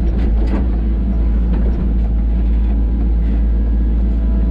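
Sany U35 mini excavator's diesel engine running steadily under working load, heard from the operator's seat, with a few light knocks within the first second as the boom and bucket move.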